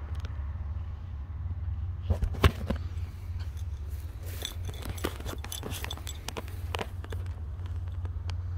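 Footsteps and scuffing clicks from someone walking, with a sharp knock about two and a half seconds in, over a steady low rumble.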